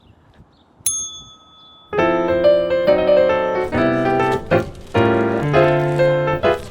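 Piano music with full chords starts about two seconds in. Before it there is a single bell-like ding about a second in.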